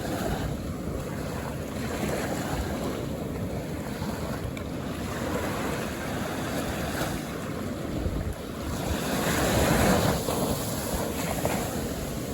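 Calm ocean waves washing onto the shore in a steady surf hiss, with one wave swelling up about two-thirds of the way through and breaking before easing off. Wind buffets the microphone throughout.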